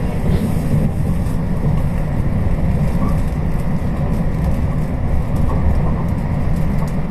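JR West Special Rapid Service train running, a steady low rumble of wheels on rail.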